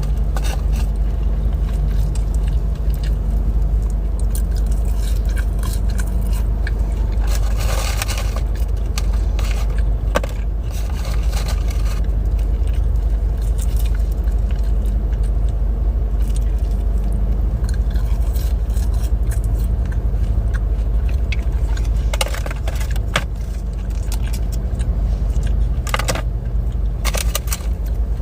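Fast-food eating sounds: paper wrappers and bag crinkling in scattered bursts, with chewing, over a steady low rumble of a car cabin.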